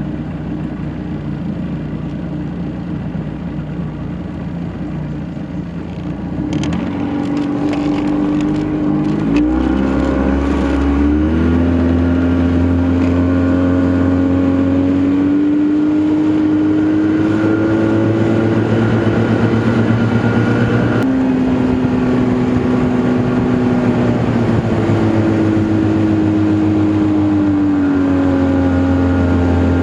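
Force 50 hp two-stroke outboard motor running at low speed, then throttled up about a third of the way in, its pitch climbing in steps before holding a steady cruise. Near the middle the revs drop briefly, then settle steady again.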